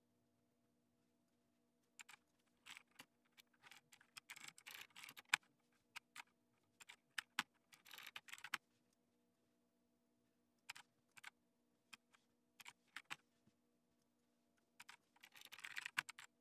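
Typing on a computer keyboard: quiet bursts of keystrokes separated by short pauses of a second or two.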